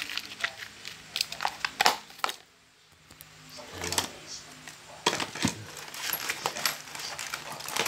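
Clicking and clattering of plastic tackle boxes and small fishing gear being handled against each other and the tile floor, a run of sharp knocks with a short pause about two and a half seconds in.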